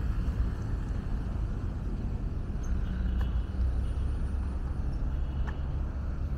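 Steady rumble of street traffic, with a few faint ticks mixed in.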